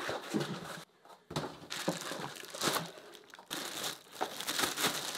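Plastic packaging bag crinkling and rustling as it is handled and pulled off an electronic drum sample pad. The crackling comes in irregular bursts, with a brief pause about a second in.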